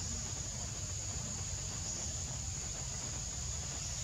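Steady high-pitched insect drone in the background, holding one pitch, with a low rumble underneath.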